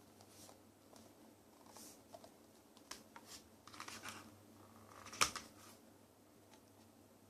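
Faint rustling and scraping of a CD album's packaging being handled and opened, with a sharp click a little past five seconds in.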